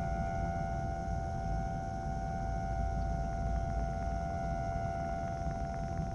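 A battery-powered instrument holding one steady drone note with a stack of overtones, unchanged throughout, over a low rumble.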